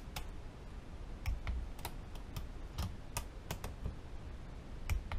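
Ratcheting torque wrench clicking as the tappet block bolts are tightened to 70 inch-pounds: about a dozen sharp, irregularly spaced clicks.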